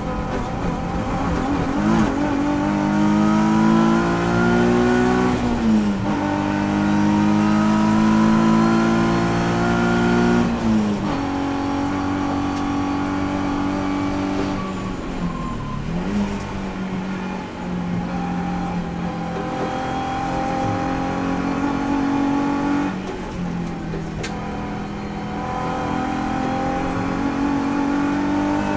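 Nissan 350Z race car's 3.5-litre V6 engine, heard inside the cabin, pulling hard at full throttle. Its note climbs steadily and drops sharply at each upshift, a few times over, with a lift and downshifts about halfway before it climbs again.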